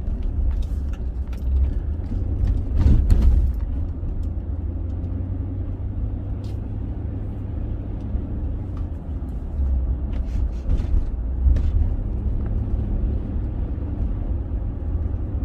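Car on the move, heard from inside the cabin: a steady low rumble of engine and road noise, swelling briefly about three seconds in.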